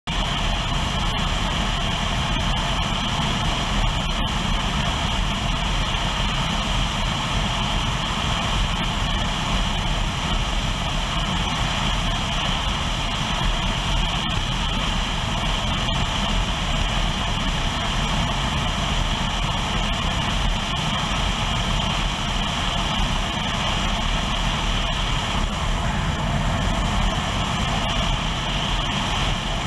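Motorcycle running steadily at road speed, with wind rushing over the helmet or bike-mounted camera's microphone. The sound stays constant throughout.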